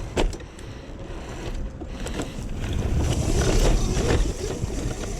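Razor MX500 electric dirt bike climbing a steep, leaf-covered hill: a rough rushing noise of tyres churning through leaves and wind buffeting the microphone, building louder about two seconds in as the bike pushes up the slope.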